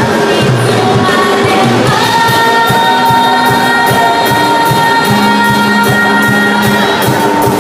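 Live rock band with a female lead singer: electric guitars, bass and drums under singing with long held notes, and a steady cymbal beat.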